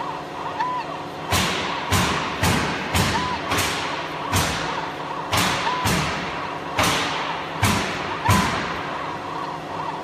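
Sharp knocks repeating roughly twice a second, a little unevenly, starting just over a second in, over a steady machine hum.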